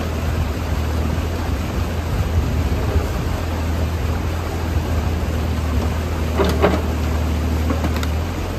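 Bobcat E35 mini excavator's diesel engine running at a steady hum while its arm and bucket work, over water rushing through a breached beaver dam. A few brief knocks come about six and a half and eight seconds in.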